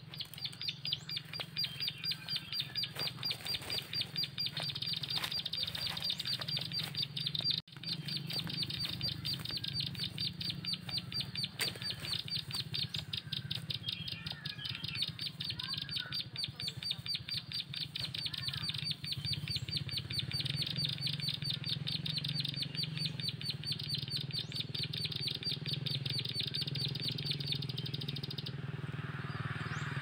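Ciblek (prinia) lure call used for bird trapping: a fast, evenly repeated high chirping, many chirps a second, that runs without a break and cuts off suddenly near the end. A few other bird calls sound now and then in the middle.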